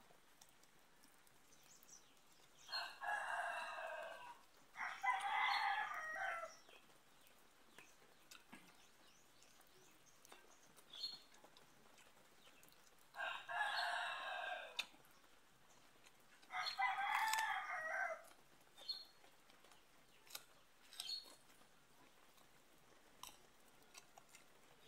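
Rooster crowing four times, in two pairs about ten seconds apart, each crow about a second and a half long; faint clicks in between.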